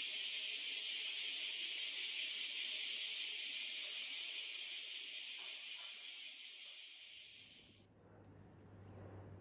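Dense chorus of summer cicadas: a steady, high-pitched hiss that fades over a few seconds and then cuts off suddenly near the end. A faint low hum follows it.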